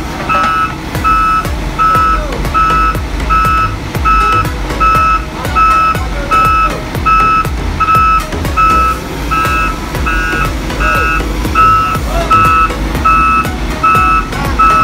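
Volvo EW205D wheeled excavator's travel alarm beeping steadily, nearly two beeps a second, over the low rumble of its diesel engine as the machine moves.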